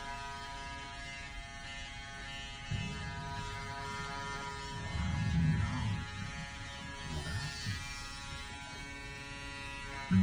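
Electric hair clippers buzzing steadily as they cut a boy's hair.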